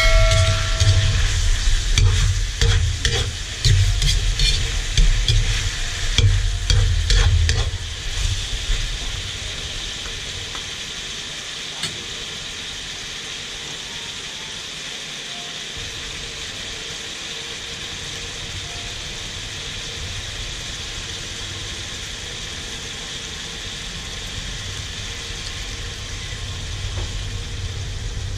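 Chicken pieces frying in a metal wok, a metal spatula scraping and clattering against the pan for about the first eight seconds, then a steady sizzle.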